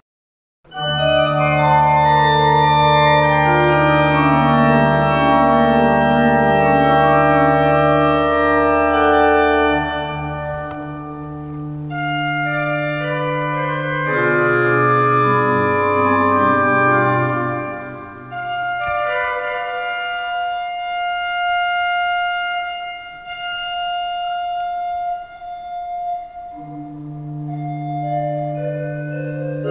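Pipe organ music: slow sustained chords over a deep held bass, starting abruptly about a second in, with the bass dropping out around ten seconds in and the chords thinning and swelling again later.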